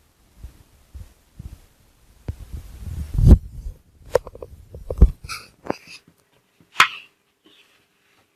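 Metal oven tray and baking mould being handled on a kitchen surface: a scraping rustle that ends in a heavy thump about three seconds in, then a few sharp knocks and clinks, some with a brief metallic ring.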